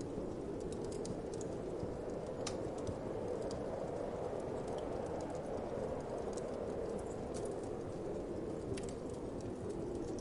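Wood fire crackling in a fireplace, with scattered sharp pops and ticks, over a steady low whoosh of winter wind.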